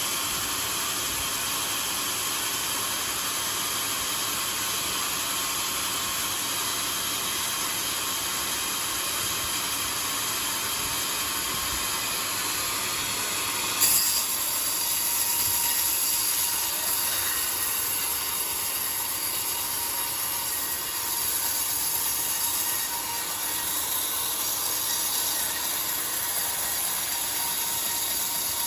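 Homemade sawmill running steadily with a dense mechanical whir. About halfway through comes a sharp knock, after which it runs louder and brighter.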